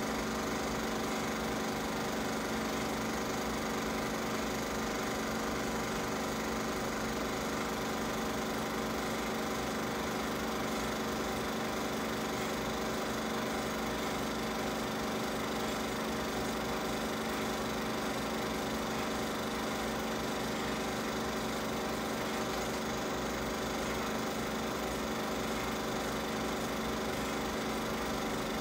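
Film projector running: a steady mechanical hum with a rapid low flutter.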